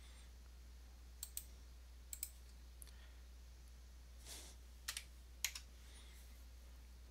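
A few faint computer keyboard key presses, mostly in quick pairs, over a steady low hum: keys struck to run a terminal install command and confirm it. The last press, a little past five seconds in, is the loudest.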